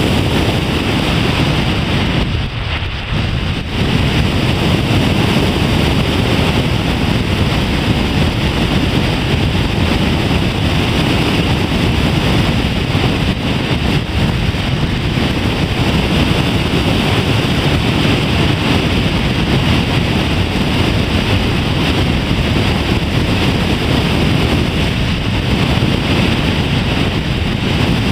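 Loud steady wind rush on the microphone of a Sony Webbie camera carried aloft by an EPP foam RC plane in flight, briefly dropping about two and a half seconds in.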